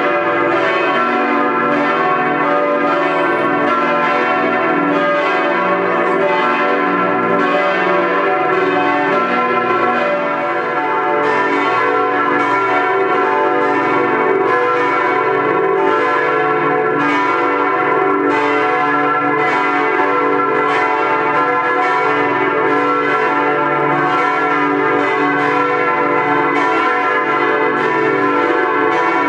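Church bells of a Protestant church tower ringing together: several swinging bells striking over and over in an uneven, overlapping pattern, their tones ringing on into one another.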